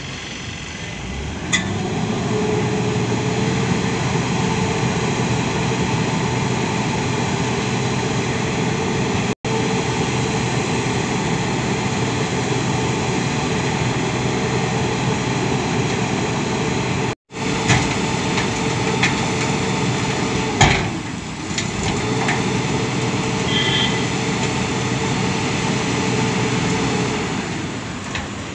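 A loaded tipper truck's diesel engine running steadily at raised revs as the truck backs up and tips its load of soil. Two sharp clacks are heard, one early and one about two-thirds of the way through. The sound breaks off for an instant twice and eases off near the end.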